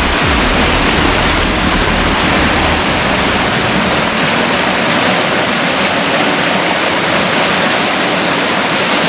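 Water rushing loudly and steadily down the falls and cascades of a gorge stream, with a deeper rumble underneath that drops away about three seconds in.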